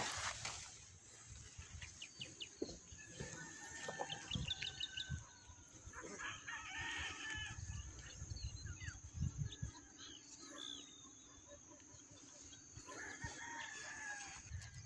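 A rooster crowing, about six seconds in and again near the end, with small birds chirping.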